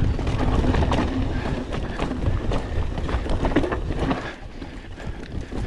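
Mountain bike riding fast down a rough, rooty trail: a steady rumble of tyres over dirt and roots with frequent clicks and knocks of the bike rattling, and wind buffeting the microphone. It eases a little about four seconds in.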